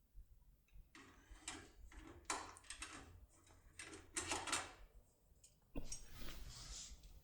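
Locksmith's cutter tool scraping and clicking in a Securemme 4+4 lock cylinder as it is pushed in and turned, in a series of short metallic rasps starting about a second in, with a longer scrape near the end.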